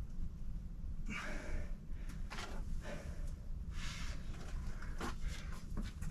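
A climber's short, forceful exhales and breaths, several times, as he pulls through moves on a boulder problem, over a steady low rumble.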